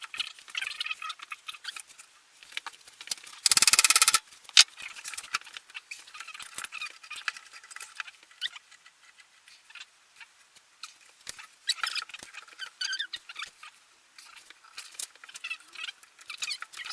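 Fast-forwarded workshop sound of a glued-up oak and walnut mallet blank being clamped: squeaky, chirping chatter and many small clicks and knocks. A loud buzzy rattle lasts about half a second, some three and a half seconds in.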